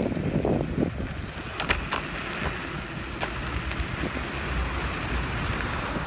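Wind buffeting the microphone, a steady rush with low rumble, and a sharp knock a little under two seconds in.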